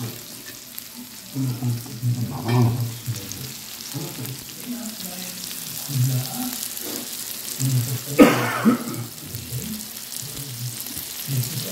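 Minced-meat patties sizzling in their own fat on a raclette grill plate, a steady frying hiss. A short louder sound stands out about eight seconds in.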